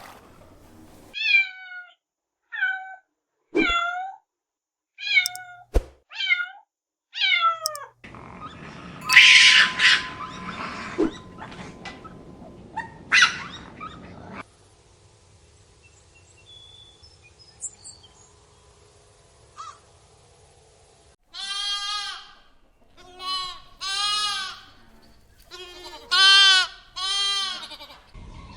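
Animal calls: a run of six short, high-pitched calls, each falling in pitch, then a loud noisy stretch of several seconds, then a series of longer calls that rise and fall in pitch near the end.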